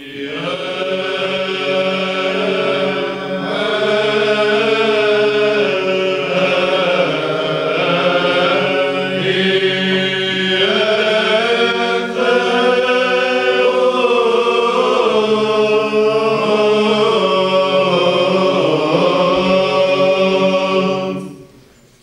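Byzantine chant sung by men's voices, one steady low drone held beneath a melody that moves slowly above it. The singing breaks off briefly near the end.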